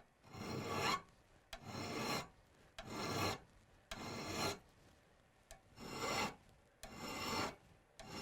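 Hand file rasping across the steel pick of an ice axe to sharpen its bevel: seven or so even strokes, about one a second, each pushed in one direction only and starting with a light click as the file meets the pick.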